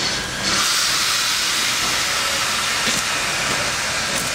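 Narrow-gauge steam locomotive venting steam: a loud, steady hiss that comes up about half a second in and holds.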